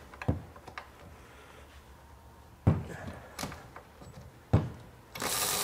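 About four sharp cracks and knocks as nuts torqued to 100 foot-pounds are broken loose by hand with a Makita XRW01 cordless ratchet. A short hiss comes near the end.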